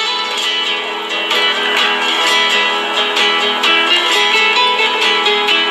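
Acoustic guitar music with strummed chords and plucked notes.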